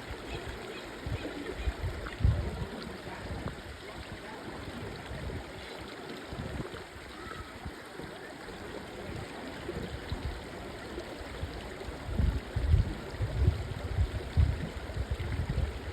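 Steady rush of flowing water, with irregular low rumbling thumps that grow loudest near the end.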